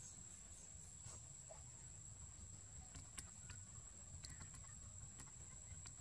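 Faint, steady high-pitched insect trill, like a cricket, with a few light clicks from about three seconds in, over a low rumble.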